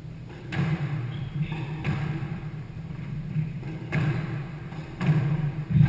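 Squash rally: the ball is struck by rackets and hits the walls, a sharp crack about every one to two seconds, five in all.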